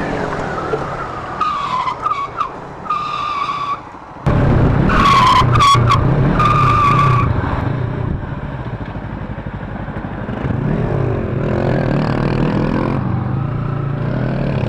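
Motorcycle engine running and wind noise while riding. Several short high-pitched squealing tones sound over it in the first half.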